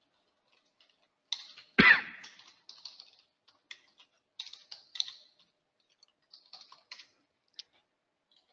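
Typing on a computer keyboard: a run of irregular keystrokes, with one louder thump about two seconds in.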